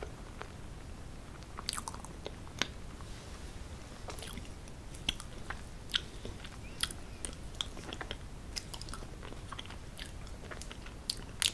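Close-miked eating: chewing with many short, sharp wet mouth clicks and smacks scattered through, over a low steady background.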